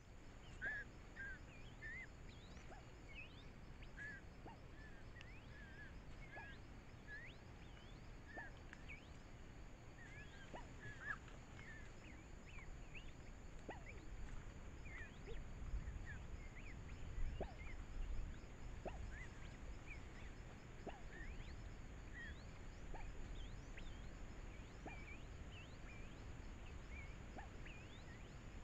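Faint forest ambience: many short, high chirps scattered throughout over a steady faint high-pitched hum, with occasional soft ticks.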